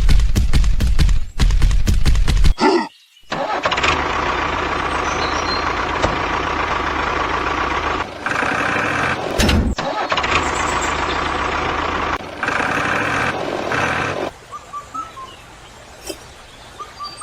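A vehicle engine starting with a rapid low rumble, then running steadily for about ten seconds with a few short breaks, dropping away after about 14 s.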